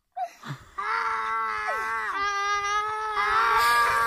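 A boy's drawn-out contest laugh, a high 'aaah' held almost on one note from about a second in, broken twice, with a second child's voice sliding down beneath it near the middle.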